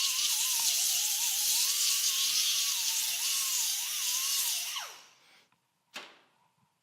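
A handheld electric power tool sanding wood. Its motor whine wavers up and down under load over a loud steady hiss. It is switched off about five seconds in, the pitch dropping quickly as it winds down, and a single knock follows about a second later.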